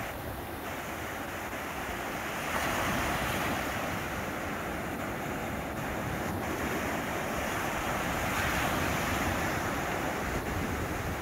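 Small Black Sea waves breaking at the shoreline and foamy swash washing up and back over the sand, a steady rush that swells louder about two and a half seconds in and again around eight seconds.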